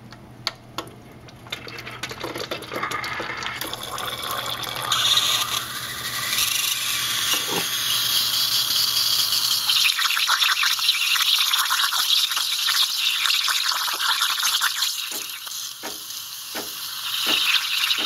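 Breville 800ESXL espresso machine's steam wand blowing steam into a glass of water: a few sputters as the steam knob opens, then a hiss that builds and grows loud about five seconds in, crackling and bubbling in the water. A low hum under the start stops about ten seconds in.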